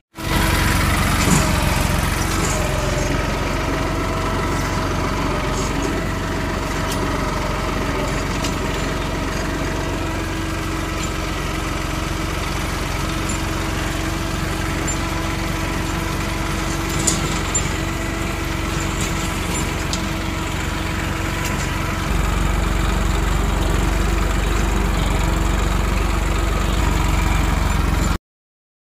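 Tractor diesel engine running steadily as it pulls a mounted seed drill, heard from the driver's seat. It gets louder about three-quarters of the way through and cuts off abruptly near the end.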